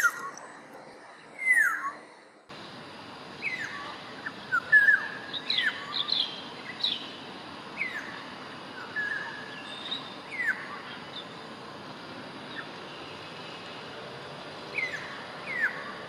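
Orioles calling: many short whistled notes that slur downward, some in quick runs, over a steady hiss. The loudest calls come near the start and about five seconds in, and the background changes abruptly about two and a half seconds in.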